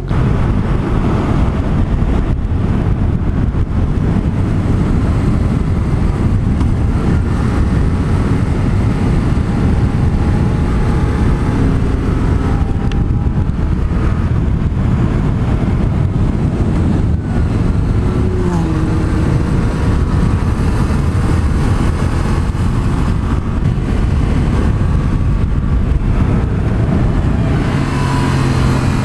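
Motorcycle being ridden at road speed, heard from a helmet-mounted camera: loud, steady wind rush over the microphone, with the engine's note faintly rising and falling beneath it.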